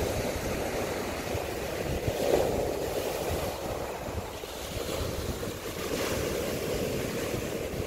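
Sea surf: waves breaking and washing up the beach in a steady rush, with one wave crashing louder about two seconds in.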